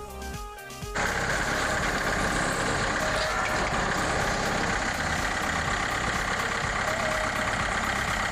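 Music cuts off about a second in, giving way to an engine running steadily at a constant speed.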